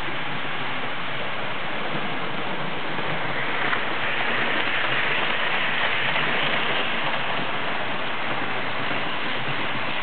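Model train running along the layout's track, a steady rolling rush of wheels and motor that gets louder about four seconds in as the train comes close past.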